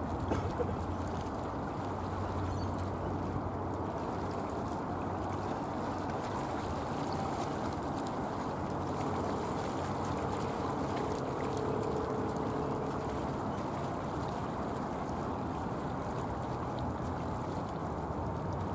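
Steady low rumble of distant jet aircraft engines, with a faint humming tone rising out of it for a few seconds in the middle.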